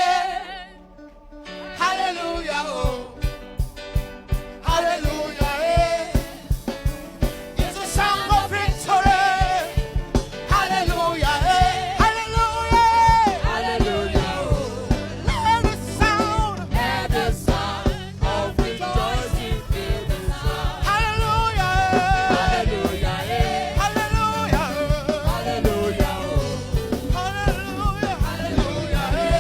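Church praise music: voices singing a song over a band with a steady drum beat. The music drops away briefly about a second in, then carries on.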